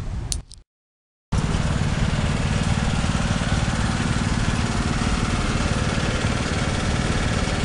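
A small engine running steadily and loudly, with a fast, even pulse. The sound drops out completely for under a second near the start.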